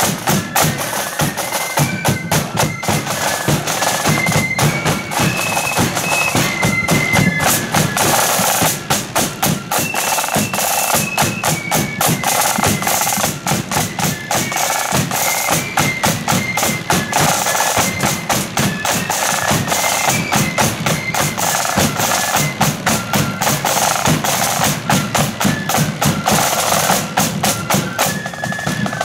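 Marching flute band playing: flutes carry a melody in unison over fast, dense side-drum strokes and a bass drum beat.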